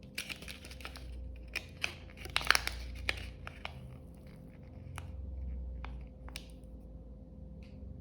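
Wood fire in a fireplace crackling, with a dense run of crackles about two to three seconds in and scattered sharp pops after, over a low steady rumble.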